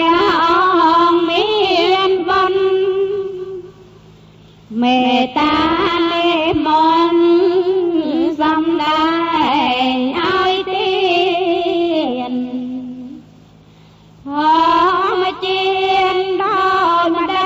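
A high voice, likely a woman's, sings a Buddhist chant in long melodic phrases, the pitch sliding and wavering within each note. The singing breaks off twice for about a second, about four seconds in and about thirteen seconds in.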